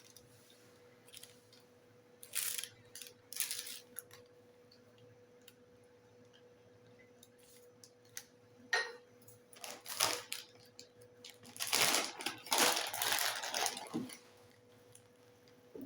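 Kitchen handling noises: scattered light clicks and knocks, with a few short scraping sounds of utensils and dishes being handled, and a longer scrape of about a second and a half near the end. A faint steady hum lies underneath.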